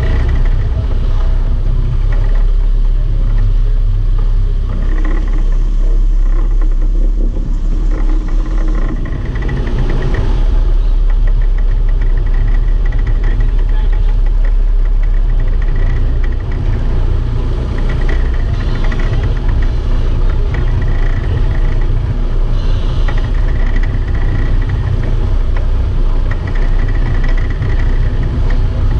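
A sport-fishing boat's engine running loud and steady, its sound sitting mostly very low with no pauses.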